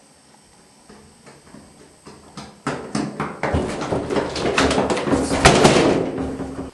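Quick running footsteps that grow louder as they approach, then a dense clatter of banging and rattling against a glass door. The sound cuts off suddenly near the end.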